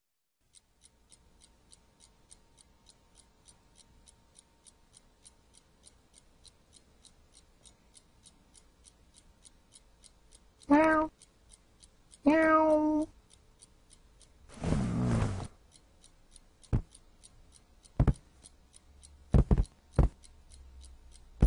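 A domestic cat meowing twice, a little over a second apart, about halfway through, over a faint steady ticking of about two to three ticks a second. A short rustling noise follows, then a few separate knocks.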